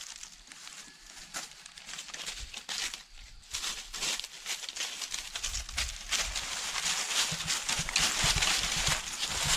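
Footsteps and goats' hooves crunching and rustling through dry fallen leaves, an irregular crackle that grows louder in the second half.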